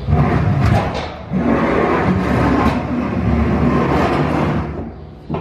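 A heavy red cone-hopper broadcast spreader being shoved across a pickup truck's bed, with a loud scraping rumble and knocks. The sound comes in two pushes, with a short break about a second in, and fades near the end.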